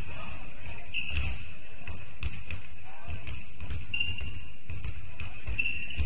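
Basketball being bounced repeatedly on the court floor, a run of low thuds at an uneven pace.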